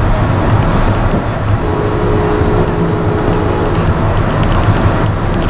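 Amtrak passenger train in motion, heard from on board: a steady, loud rumble of the running train, with scattered light ticks and rattles.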